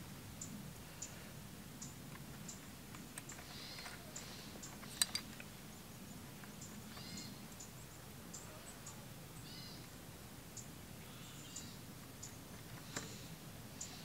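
Faint small clicks and taps of copper ground wires being handled and pushed into a Wago lever connector, with a sharper double click about five seconds in. Birds chirp briefly now and then.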